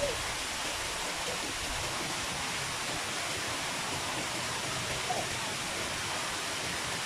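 Waterfall rushing: a steady, even hiss of water falling over rocks.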